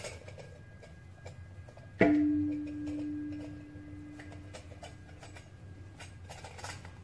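A stainless steel mixing bowl is struck once, about two seconds in, and rings with one clear tone that fades away over about three seconds. Around it come faint taps and rubbing as hands pull apart rice-flour dough in the bowl.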